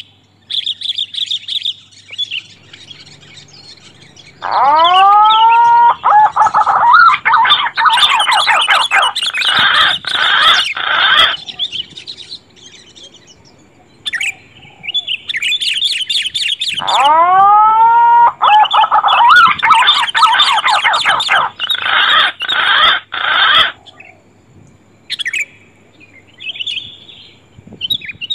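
Bird-lure recording of green pigeon (punai) and sooty-headed bulbul (kutilang) calls, looped: dense chirping and whistling, each round opening with a run of sliding whistled notes and repeating about every twelve seconds, with short quieter gaps between rounds.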